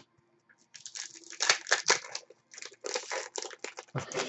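Foil wrapper of a trading-card pack crinkling and crackling in the hands as the pack is opened and the cards are handled, a dense run of irregular rustles starting about a second in. A few soft thumps near the end.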